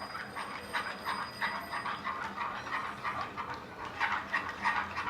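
A spoon stirring milk briskly into roasted gram flour in a pan, a quick scraping swish about four strokes a second, worked fast to keep lumps from forming.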